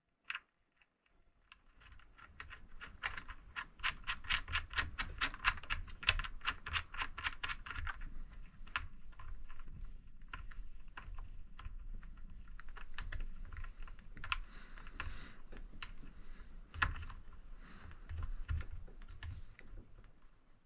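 Quick, evenly spaced clicking, about five clicks a second, then slower irregular clicks and scraping as the Magnetor's arm is worked onto its mount over the stopper and gasket, a fit that is a bit stiff at first.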